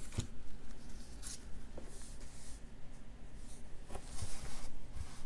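Tarot cards being handled and laid on a cloth: light rustling and a few soft clicks, with a brushing swish about four seconds in as a card is slid into place.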